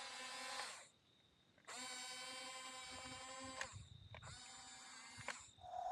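Electric drive motors and gearbox of a Huina RC bulldozer whining in three short runs, stopping and starting again with brief pauses between them.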